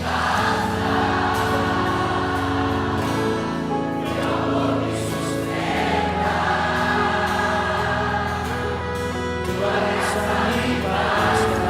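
Worship music: a group of voices singing a slow Portuguese worship song in long held phrases, with instrumental accompaniment.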